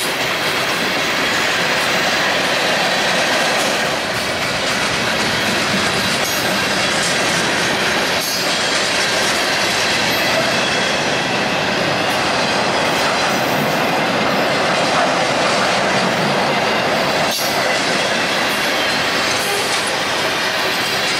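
Freight train of tank cars and hopper cars rolling past at speed: steady noise of steel wheels on the rails, with two sharp clacks, about eight and seventeen seconds in.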